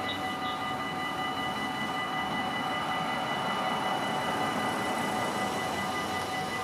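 Dutch level-crossing warning bells ringing steadily at a lowered half-barrier crossing, over the rushing rumble of a train passing over the crossing, louder through the middle.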